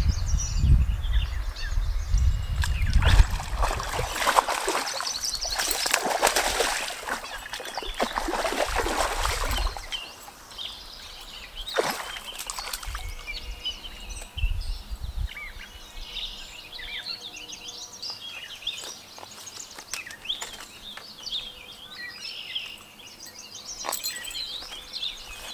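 Wind rumbling on the microphone and rushing through the streamside bushes for about the first ten seconds, then dropping away to quieter outdoor ambience with songbirds chirping.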